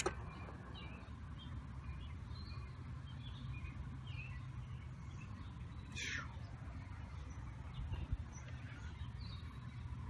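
Faint outdoor ambience: scattered distant bird chirps over a low steady rumble, with a brief rustle about six seconds in.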